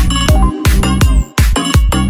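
Electronic dance music with a fast, steady beat, dropping out briefly about one and a half seconds in.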